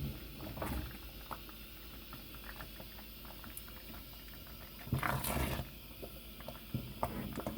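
Quiet table-side handling of dishes and utensils: scattered small clicks over a low hum, with a short breathy rush about five seconds in.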